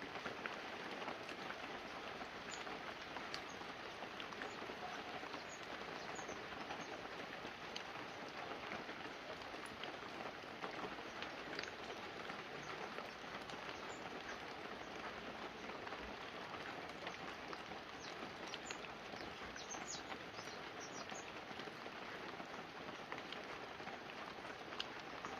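Light, steady rain falling on banana leaves and a roof: a soft even patter with many separate drops ticking through it.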